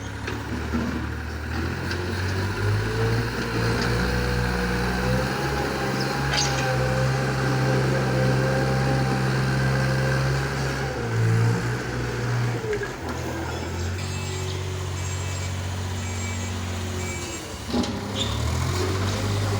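Heavy construction machinery engine running steadily, its pitch dipping and rising a few times as it works. A series of short high beeps sounds for a few seconds past the middle.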